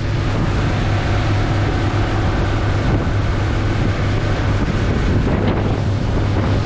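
Center-console boat running at speed: heavy wind on the microphone and water rushing past the hull over a steady low engine drone.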